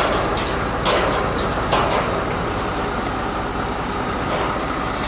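Truck-mounted crane's engine running steadily during a lift, with short sharp clicks and knocks at irregular moments.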